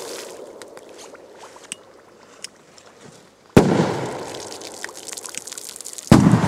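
Two firecrackers exploding in shallow water, sharp bangs about two and a half seconds apart, each followed by a fading hiss of spray falling back. Before the first bang, the spray of an earlier blast dies away with scattered drips.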